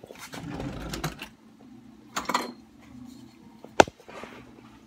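Light clicks and taps of kitchen handling at a stainless-steel pot of boiling water as a bundle of dry spaghetti is fed into it, with one sharp knock near the end.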